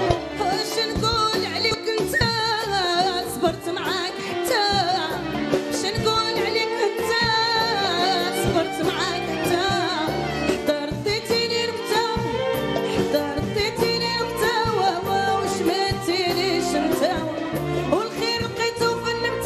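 Moroccan popular song played by a band: a wavering, ornamented melodic lead over a steady beat.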